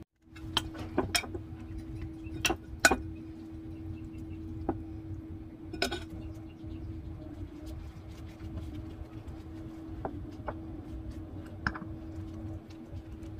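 A metal spoon clinks against a ceramic bowl while ground beef is scooped onto a tortilla, with several sharp clinks in the first few seconds and a few fainter ones later. A steady low hum runs underneath.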